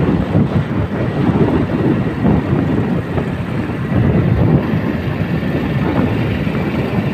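Motorcycle riding noise heard from on the bike: a small engine running under steady, gusty wind buffeting on the microphone.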